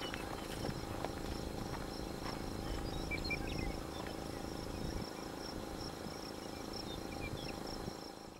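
Crickets chirping in a steady, evenly pulsing high trill over a low background rumble. The sound fades out at the very end.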